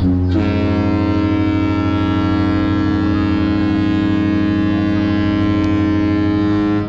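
One long, steady blast of a cruise ship's horn, holding a single deep pitch and stopping just before the end.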